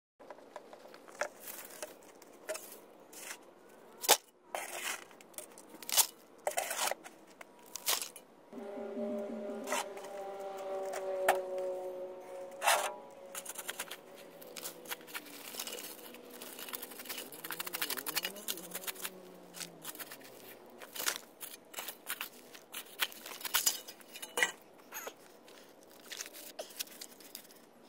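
Hands scraping and scooping loose dirt and small rocks in a dug hole, with many sharp clicks and knocks. A steady pitched drone is heard from about a third of the way in until near the middle.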